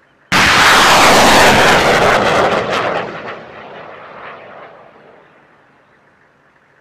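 HIMARS launcher firing a rocket: the rocket motor's rushing roar starts suddenly about a third of a second in and stays loud for about two and a half seconds. It then fades away over the next few seconds.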